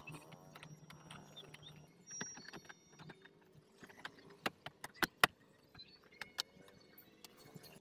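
Scattered sharp plastic clicks and taps of a car's centre console trim being handled and pressed into place, with a few louder clicks about halfway through.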